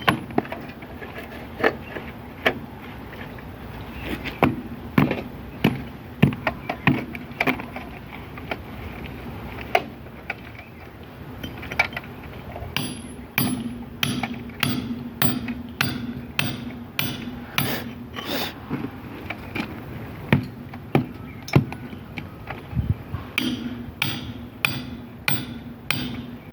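Repeated sharp knocks of hammer or tool strikes, irregular at first, then coming faster at about two a second from about halfway through, over a faint steady hum.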